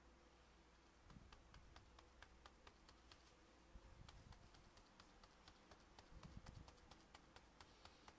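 Faint, quick light taps of a foam sponge dauber being dabbed up and down on a plastic stencil, stippling white acrylic paint onto canvas. The tapping starts about a second in.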